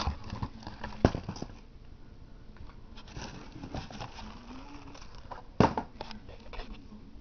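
Close handling noise of fireworks packages: light rustling and scattered clicks, with two sharp knocks, one about a second in and one later on.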